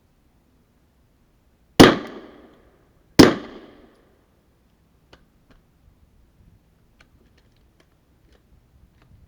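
Two shots from a suppressed 9mm Glock 17 pistol, about a second and a half apart, each a sharp crack with a short fading tail, followed by a few faint small ticks.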